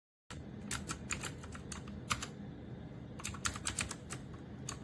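Keys of a Royal Kludge RK61 60% mechanical keyboard being typed on: irregular sharp key clicks in quick runs, starting about a third of a second in.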